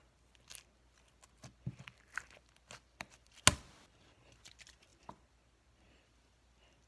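Scattered clicks and taps from handling an aerosol can of silly string that barely sprays, with one sharp knock about three and a half seconds in.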